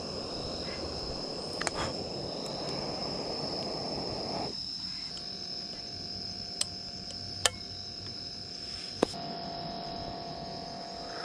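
Insects calling with one steady high-pitched tone, over a rushing noise that drops away about four and a half seconds in. A few short sharp clicks come through, the loudest near the middle.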